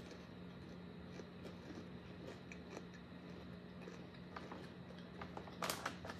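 Quiet chewing of chocolate-covered nuts, with soft scattered mouth clicks over a low steady hum; a few louder crackles come near the end.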